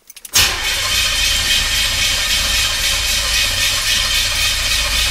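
1976 Corvette's new crate V8 engine started with the ignition key: it catches about a third of a second in and then runs steadily. It is heard from inside the cabin.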